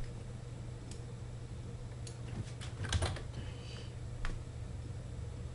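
Computer keyboard being typed on: scattered keystrokes in short runs of a few clicks, over a steady low hum.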